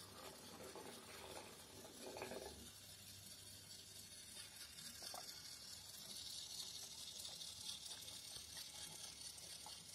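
Faint whirring of a toy train's small electric motor and the rattle of its wooden wagons rolling along wooden track, with a few short clicks. The whir grows louder from about halfway through as the train comes closer.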